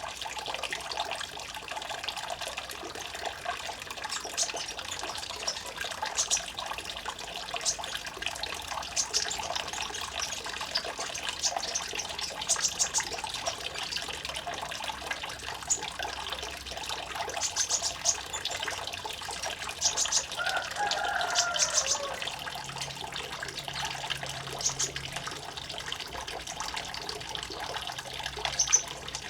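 Water trickling and splashing steadily, with short high-pitched sounds scattered through it and a brief warbling phrase about twenty seconds in.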